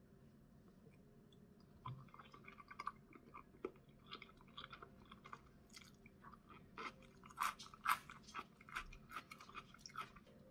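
Close-up chewing of a piece of fried fish cake: a run of short, crisp mouth clicks and smacks that starts about two seconds in.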